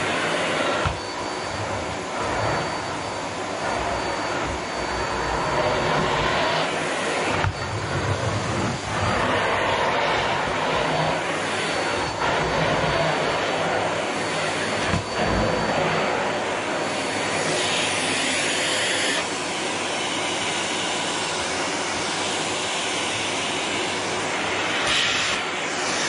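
Canister vacuum cleaner running steadily, its floor nozzle pushed back and forth over carpet.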